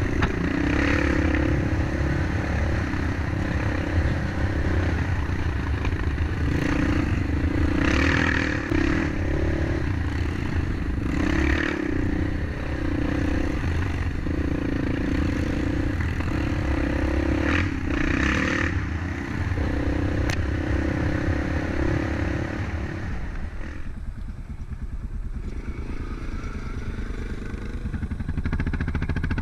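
Quad bike (ATV) engine running under varying throttle on a rough dirt trail, its note rising and falling, with rattling from the machine and brief swishing hisses now and then. The engine sound eases and changes a few seconds before the end.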